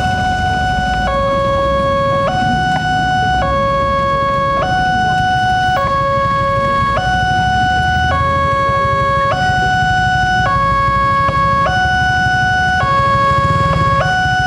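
Railroad level-crossing warning alarm sounding a loud two-tone electronic signal that alternates high and low about every second, the warning that a train is approaching. Motorbike engines and road noise run underneath.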